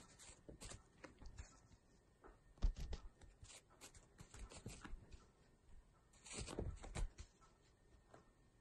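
Faint scattered rustling and scratching as a Maine Coon kitten's paws scuffle on the carpeted cat tree while it bats at a toy, with a sharper scrape about two and a half seconds in and a cluster of rustles around six seconds in.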